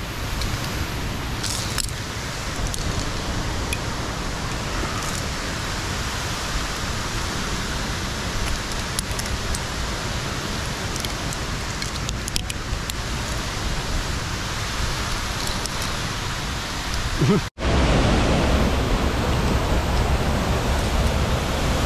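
Steady rush of a waterfall close by, an even hiss of falling water with a few faint clicks. It cuts out abruptly about three-quarters of the way through, then comes back with more low rumble.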